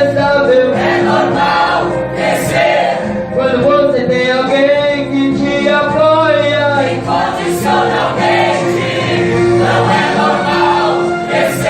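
A choir singing a gospel hymn over instrumental accompaniment with sustained chords and bass.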